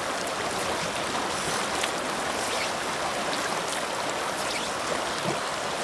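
A shallow, fast mountain stream rushing steadily over rocks and riffles.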